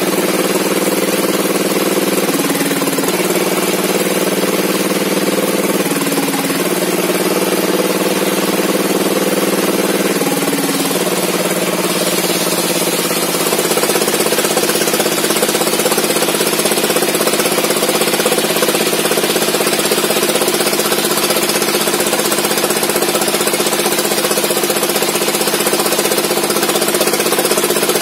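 A small engine running steadily, its pitch dipping briefly three times in the first ten seconds, then holding steady and getting a little louder about 13 seconds in.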